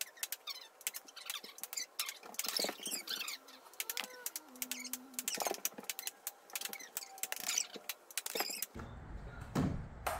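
Fast-forwarded sound of ping pong balls being thrown and bouncing on a wooden floor: a dense, rapid run of clicks and taps with squeaky, chirp-like sped-up noises among them. Fuller, deeper sound returns about a second before the end.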